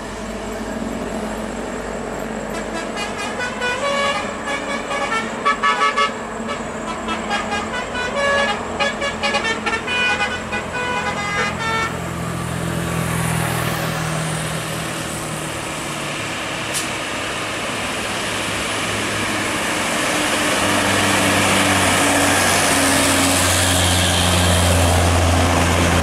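A truck's musical multi-tone horn plays a fast melody of short, stepped notes for about ten seconds. Then a heavy truck's engine runs, growing louder toward the end as it draws near.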